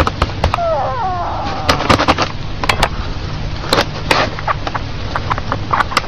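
Handling noise from a camera held right against a cat: a steady low rumble with many sharp clicks and knocks, and a short falling-pitch call about a second in.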